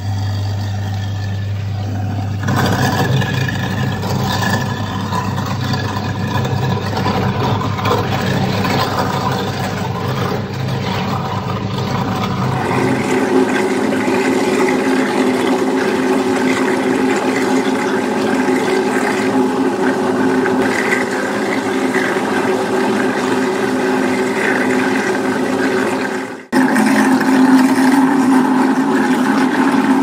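Half-horsepower garbage disposals running and grinding a mix of food scraps, with tap water running into the sink. The steady motor hum changes pitch about 13 seconds in, where the InSinkErator Badger 5 is heard. After a brief drop near the end it changes again, to the GE GFC525N with its permanent-magnet motor.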